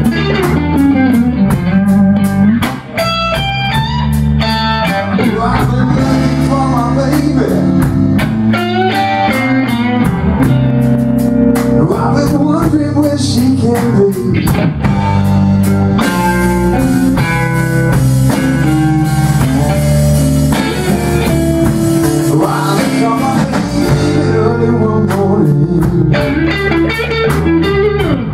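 Blues band playing: electric guitar lines with bent notes over a bass line and a drum kit keeping a steady cymbal beat.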